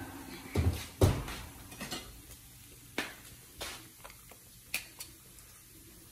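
Metal sheet pan and utensil knocking and clicking as a foil-lined tray of freshly baked bacon is handled: two heavier knocks in the first second or so, the louder one about a second in, then lighter, scattered clicks.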